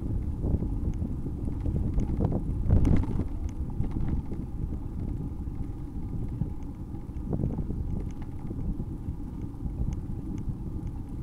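Wind buffeting the microphone of a camera riding along on a moving bicycle: a steady low rumble, with scattered knocks and rattles from the ride, the strongest a few seconds in.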